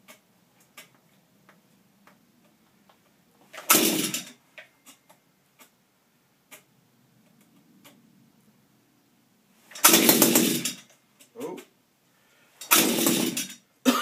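Shindaiwa power broom engine being pull-started three times with the choke off. Each pull gives a short burst of cranking about a second long, and the engine does not catch and keep running.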